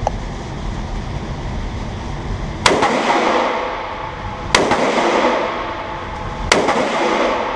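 AR-15 rifle firing three single shots about two seconds apart, each a sharp crack followed by an echoing tail lasting about a second.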